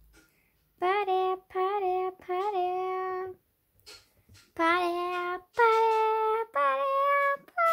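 A child's voice singing a short wordless tune: two phrases of three held notes each, with a pause of about a second between the phrases.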